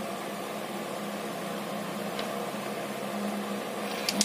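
Steady low mechanical hum, like a running fan or appliance, with a faint click about two seconds in and a few small clicks near the end as light domino tiles are set upright on a table.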